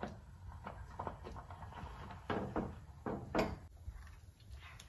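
Silicone spatula stirring thick, creamy gravy in a nonstick pan, giving a series of short scraping and tapping strokes against the pan. The loudest strokes come a little past halfway through.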